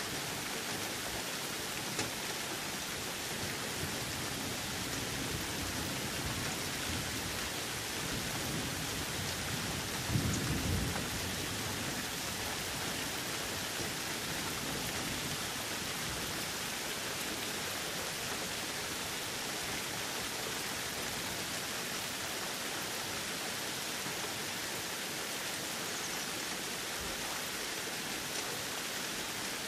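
Thunderstorm: steady rain falling, with a low roll of thunder about ten seconds in.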